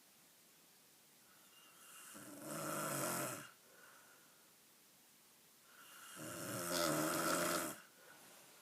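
Snoring: two long snores about three and a half seconds apart, each swelling and then stopping abruptly, with quiet between them.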